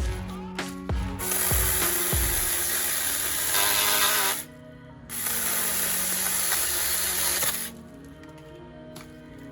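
Small battery-powered 4-inch chainsaw running in two stretches, stopping briefly about halfway through and cutting out again near the end, over background music.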